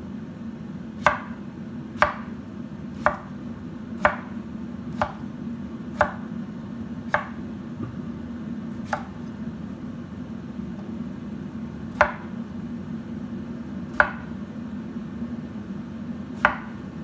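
Knife chopping on a cutting board: single sharp strokes about once a second, then slower and more spaced out after about seven seconds, over a steady low hum.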